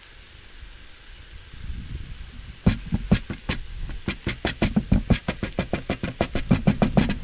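Pork belly sizzling on a grill pan with a steady hiss. About two and a half seconds in, a quick run of sharp clicks or pops starts, about five or six a second, and stops just before the end.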